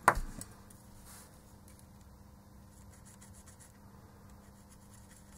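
Felt-tip marker writing on a circuit board: faint scratching of the tip, after one short, sharp click at the very start.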